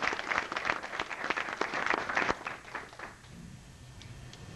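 Audience clapping, dying away about two and a half to three seconds in to quiet room noise.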